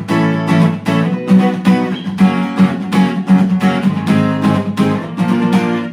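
Fender CD-60 V3 dreadnought acoustic guitar, played unplugged, strummed in a steady rhythm of about three strokes a second, with a strong, full bass.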